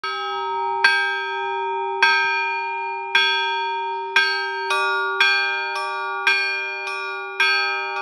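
Orthodox church bell ringing (zvon) on a small frame belfry of seven hanging bells, struck by rope-pulled clappers. A low bell hums steadily under the strikes, which come about once a second at first and quicken to about twice a second halfway through.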